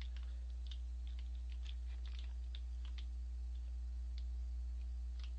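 Scattered light clicks and small mouth sounds of someone eating, a few a second, over a steady low electrical hum.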